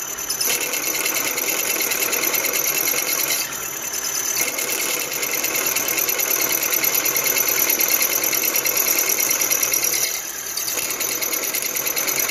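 A long end mill cutting slowly down a stud hole in a cast-iron Cosworth 200 engine block: a steady machining whirr with a fast rattle, easing off briefly about three and a half seconds in and again about ten seconds in.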